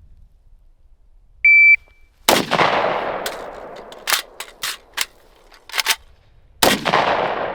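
A shot timer beeps once, and about a second later a 5.56 Zastava PAP M85 AK-pattern rifle with a muzzle brake fires a single loud shot that echoes. A run of sharp metallic clicks and clacks follows as the rifle is reloaded, then a second shot about four seconds after the first.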